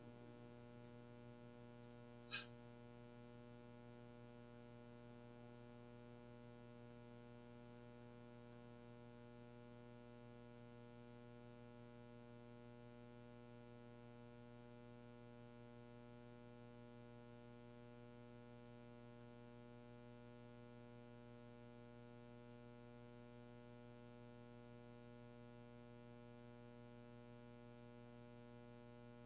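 Near silence: a faint, steady electrical hum in the audio line, with a single click about two seconds in.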